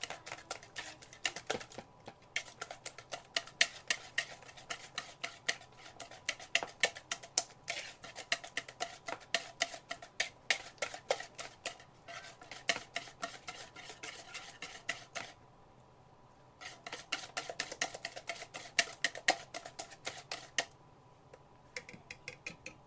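Wire balloon whisk beating a wet batter of mashed banana, sugar and egg in a mixing bowl, its wires clicking rapidly and regularly against the bowl's sides. The beating stops twice for about a second.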